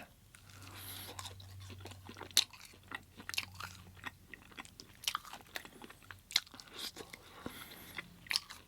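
Close-up eating sounds: chewing with wet mouth clicks and sharp crunching bites into food, one loud crunch about two seconds in. A low steady hum runs under the first half.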